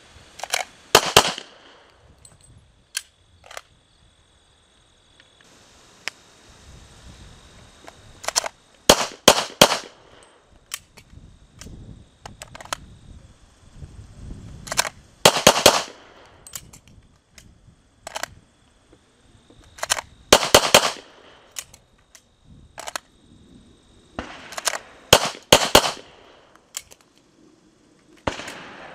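Sharp metallic clacks in quick clusters every few seconds, from a pistol being loaded and drawn from a holster that chambers the weapon as it comes out.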